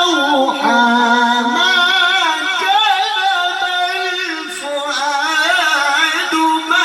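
A man's voice in melodic Quran recitation (tilawah), drawing out one long melismatic phrase. The pitch winds up and down through wavering ornamented turns, with a held low note in the first two seconds and a short dip in loudness about two-thirds of the way through.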